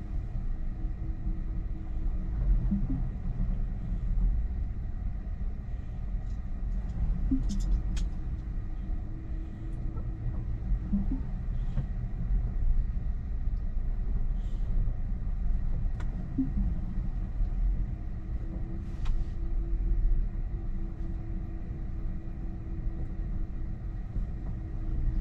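Inside a Tesla electric car creeping back and forth in a driveway: a steady low rumble, with a low hum that comes and goes three times and a few faint clicks.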